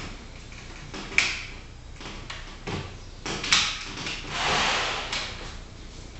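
Scattered knocks and clicks from someone moving through an empty room. There is a sharp knock about a second in, another about three and a half seconds in, and a longer rushing sound a little after.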